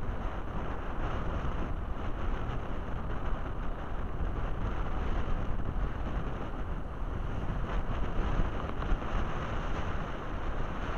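Strong, gusty wind buffeting the camera's microphone: a steady rumbling rush of noise, heaviest in the low end, that wavers in strength with the gusts.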